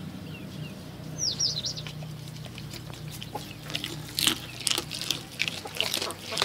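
A quick cluster of short, high chirps from birds about a second in. From about four seconds a goat chews on a whole fish, making a run of sharp crunching clicks. A steady low hum runs underneath.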